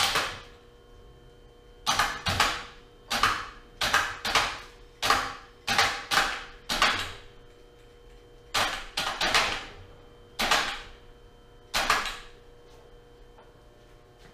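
A series of sharp metal knocks, about a dozen in ones and pairs, each ringing briefly, as steel parts of an arbor press and its stand are struck and worked. They stop about 12 seconds in, leaving a faint steady hum.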